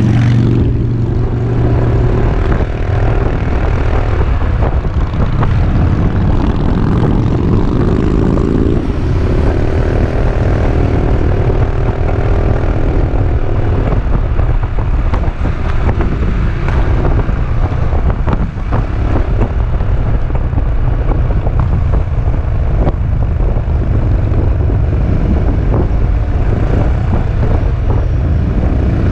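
Peugeot Metropolis three-wheeled scooter's single-cylinder engine running under way, with wind rushing over the helmet-mounted action camera's microphone. The engine note rises and falls a few times as the scooter speeds up and slows.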